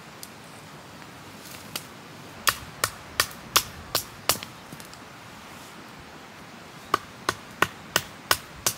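Wood being chopped into kindling for a campfire: two runs of six sharp, evenly spaced knocks, about three a second, with a pause between them.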